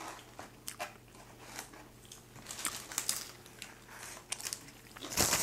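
Paper fast-food wrappers crinkling and rustling as they are handled, with scattered small crackles and clicks and a louder rustle near the end.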